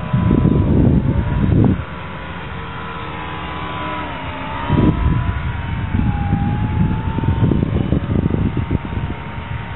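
Electric motor and propeller of a foam RC biplane whining steadily in flight, the pitch dipping twice as the throttle changes or the plane passes. Gusts of low rumble from wind on the microphone come and go, loudest in the first two seconds.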